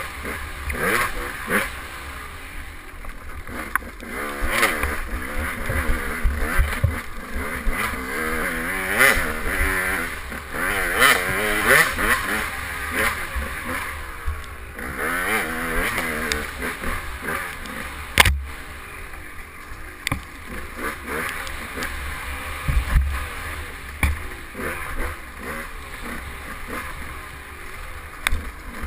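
KTM 200 XC two-stroke dirt bike engine revving up and down hard as it is ridden over a rough trail, with frequent knocks and clatter from the bike over bumps. One sharp loud knock about eighteen seconds in.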